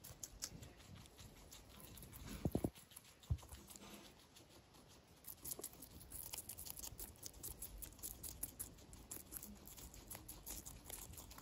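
Guinea pigs chewing chunks of yellow pepper: rapid, fine crunching clicks, thickest in the second half. Two louder low knocks come about two and a half and three seconds in.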